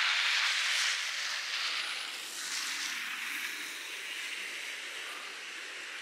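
Steady outdoor hissing noise, loudest in the first second and then easing off slowly.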